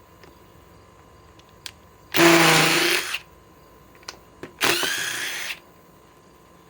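Cordless DeWalt DCF860 impact driver running in two short bursts of about a second each, backing old screws out of a wooden stump; the motor pitch falls away as the second burst ends. A few faint clicks come between the bursts.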